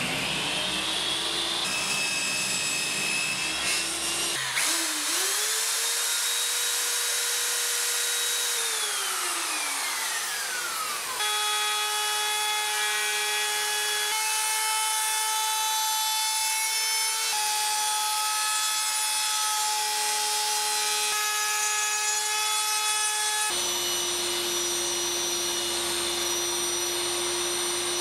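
Electric power tools in a string of short edited clips: a motor whine that rises as it spins up, and another that holds its pitch and then falls away as the motor winds down. Then a plunge router runs with a steady high whine while routing a profile in a pine strip, changing slightly at each cut. Near the end the Makita table saw runs with a lower steady whine.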